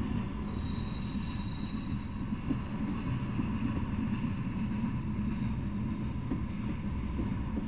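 Freight train of tank cars rolling past: a steady low rumble of the cars on the rails, with a faint thin high whine for about a second near the start.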